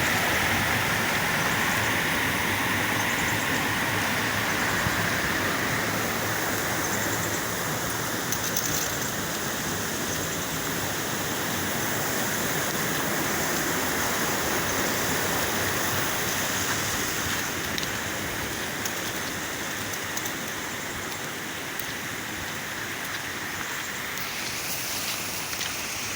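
Steady noise of water, with no breaks or separate events, easing slightly in level toward the end.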